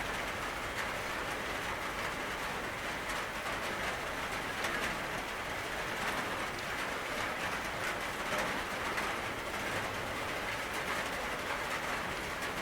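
Steady rain falling, an even hiss with many small drop ticks running through it.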